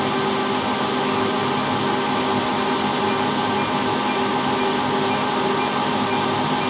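Liebert eXL 200 kVA UPS running with a steady fan noise and short alarm beeps about twice a second. About a second in, a high-pitched whine grows louder as the inverter switches on.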